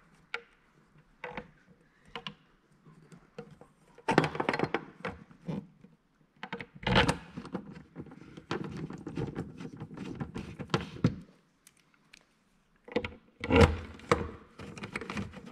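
Small metal clicks, clinks and rattles in several bursts as a metal hood cover is fitted over a round LED tail light and its screws are worked in with a hex key and a small driver. The loudest clatter comes near the end.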